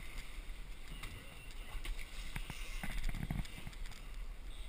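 Choppy sea water splashing and sloshing against the side of a sportfishing boat over a low steady rumble. A faint voice rises briefly about three seconds in.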